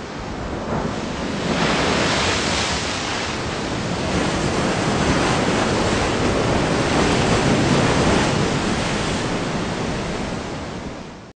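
Ocean surf as a sound effect: breaking waves in a steady rushing noise that swells about two seconds in and again around eight seconds, easing slightly before cutting off suddenly at the end.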